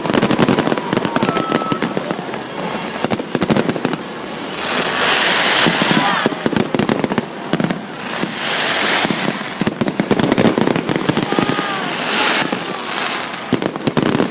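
Fireworks display: a dense, rapid run of bangs and crackles, with swells of hissing crackle about every three to four seconds.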